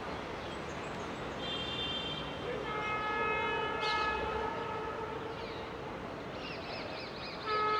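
Train horn sounding: a short higher-pitched blast about a second and a half in, then a lower tone held for about three seconds, and another blast starting near the end.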